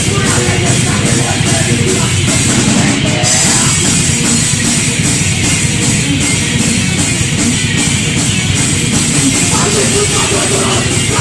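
Thrash metal played loud by a full band: distorted electric guitars over fast, driving drums, with no vocals.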